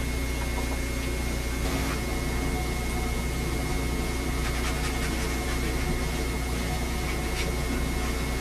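Steady hiss and low hum with a thin high whine: the background noise of an old VHS camcorder recording. A few faint light taps sound about two, five and seven seconds in.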